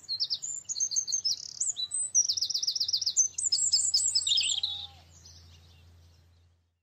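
Songbirds singing: quick high chirps and a fast trill of repeated notes, over a faint low steady hum. It fades away about five seconds in.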